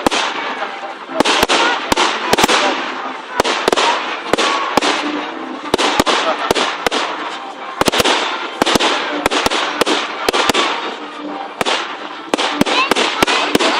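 Fireworks display: a rapid, irregular run of sharp bangs, several a second at times, each trailed by a crackling hiss.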